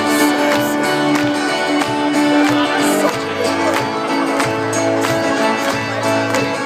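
Live band playing an instrumental passage of a song: sustained chords and a moving bass line over a steady beat.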